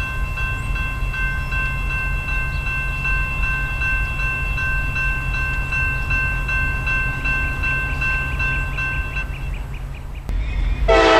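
Railroad grade crossing bell ringing steadily, with a regular repeating strike, over a low rumble. Near the end, after a brief break, a GP38-2 diesel locomotive's air horn starts blowing loudly.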